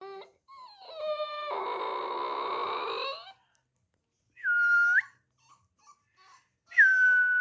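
A dog howling: one long drawn-out howl lasting nearly three seconds, followed by two short high-pitched whines.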